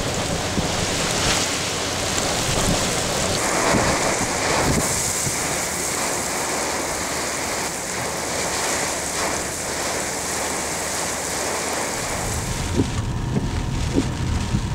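Heavy hurricane rain driven by wind, a steady loud rushing hiss of rain pelting a flooded road. About twelve seconds in the sound changes to a duller, lower rush with scattered taps.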